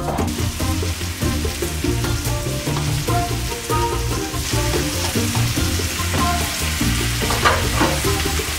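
Beans and meat sizzling in a hot stainless frying pan as the beans are tipped in from a plate and worked with a wooden spoon, with a few short scrapes. Background music with steady low notes plays underneath.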